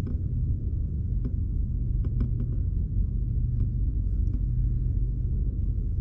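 Tabby cat purring steadily close to the microphone, a continuous low rumble, with a few faint ticks about two seconds in.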